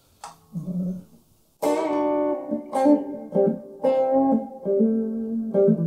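Electric guitar with single-coil pickups played through a Hughes & Kettner Tubemeister 36 valve amp, with light distortion from a pedal. After a soft click, a chord rings out about a second and a half in, then a string of sustained picked notes follows. The tone is lightly driven, not breaking up much.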